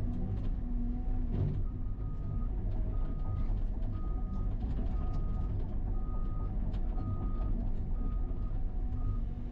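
Caterpillar excavator running under load, heard from inside the cab: a steady low engine and hydraulic rumble as the bucket rakes brush and dirt. From about two seconds in, a short high electronic beep repeats roughly every three-quarters of a second, with scattered light clicks.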